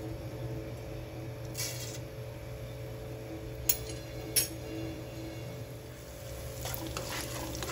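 Cumin seeds tipped into hot oil and ghee in a non-stick pan: a brief rustle about two seconds in and two sharp clicks near the middle. A faint sizzle builds toward the end as the seeds start to fry, over a steady low hum.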